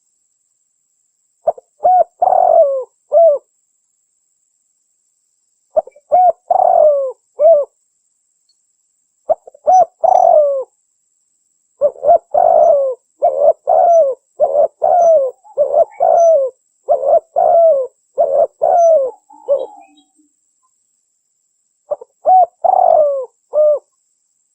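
Spotted dove cooing in short phrases of three or four coos, separated by pauses of a second or two, with a longer run of many coos in quick succession through the middle.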